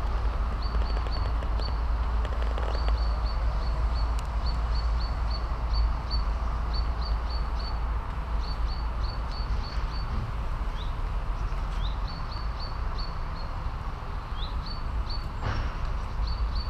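A small bird chirping in quick runs of short high notes, about three to four a second, with a few rising notes now and then, over a steady low rumble.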